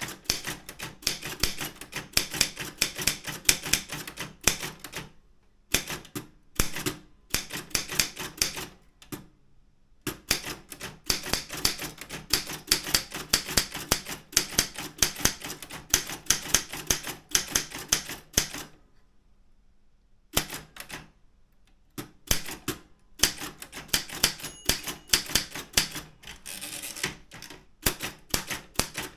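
Daro Optima M16 manual typewriter being typed on: quick runs of key strikes, with short pauses and one longer pause about two-thirds of the way through.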